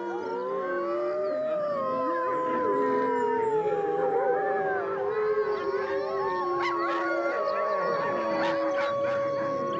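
A chorus of wolves howling: several long, overlapping howls at different pitches, one rising at the start and then sliding slowly down, with a high howl held steady through the second half.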